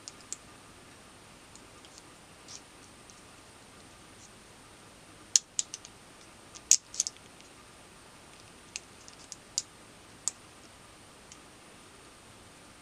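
Small, sharp metallic clicks and snaps from a 1/3-scale Glock 17 replica's metal slide and polymer frame, fitted together and worked by hand. The clicks come in a tight cluster about five seconds in, then as scattered single clicks a few seconds later.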